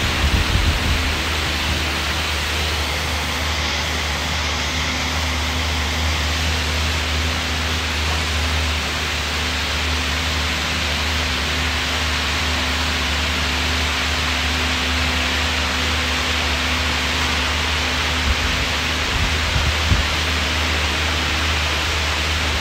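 Air bike being pedalled hard, its fan flywheel giving a steady rush of air with a constant low hum.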